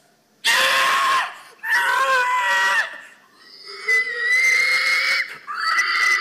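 Hog call: a man imitating a pig's squeal through cupped hands, four long high squeals with short gaps between them, the last running on near the end.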